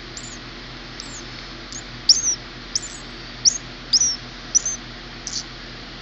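Nestling bird giving a series of about ten short, high-pitched begging cheeps as it is hand-fed chopped worm, each note slurring quickly downward, the loudest about two seconds in.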